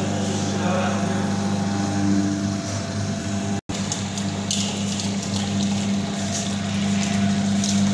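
Electric sugarcane juice machine running with a steady motor hum while a stalk of sugarcane is fed through its crushing rollers. The sound cuts out for an instant a little past halfway.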